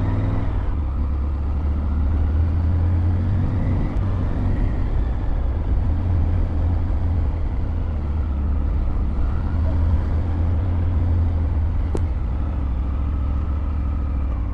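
Triumph Tiger 900 GT Pro motorcycle riding along at a steady pace: a constant low engine rumble mixed with road and wind noise, with faint tones drifting slowly up and down.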